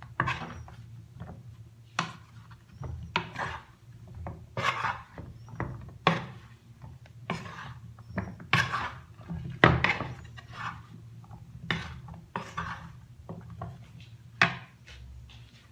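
A spoon scraping and knocking in a bowl or container, about once a second in short scratchy strokes with a few sharper knocks, as cornflour is added to parboiled potato strips.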